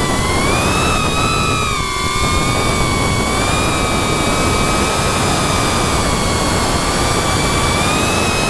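FPV drone's electric motors and propellers whining at a fairly steady throttle over a rush of air noise; the pitch dips slightly about two seconds in.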